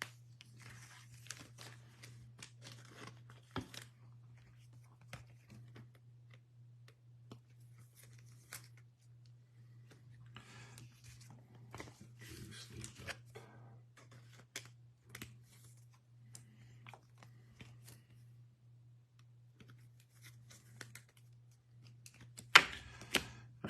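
Trading cards and pack wrappers handled quietly, with scattered soft clicks and rustles over a steady low hum; near the end a loud, sharp tear as a foil card pack wrapper is ripped open.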